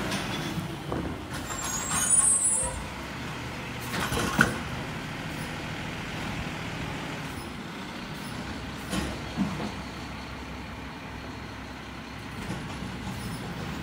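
Automated side-loader garbage truck's diesel engine running as it rolls slowly and comes to a stop. There is a brief high squeal about two seconds in, a sharp knock a couple of seconds later, and a few smaller knocks near the middle.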